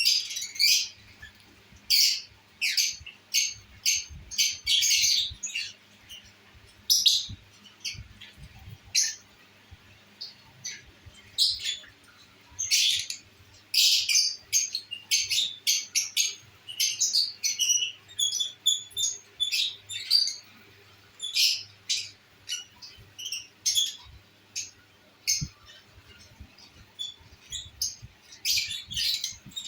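Pet lovebirds calling in short, high chirps and squawks, many in quick, irregular succession.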